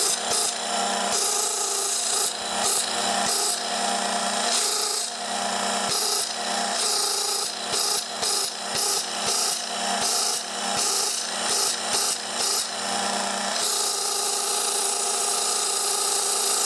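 Sanden car air-conditioning compressor, belt-driven by an electric motor on a variable-frequency drive, running steadily: a steady hum under a rough, hissing scrape that flickers on and off rapidly, then evens out about 13 seconds in.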